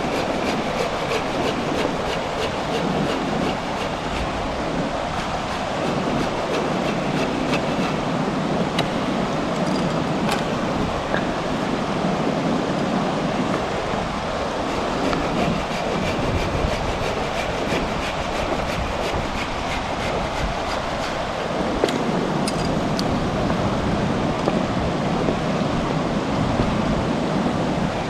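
A river rushing steadily past, a continuous dense wash of water noise.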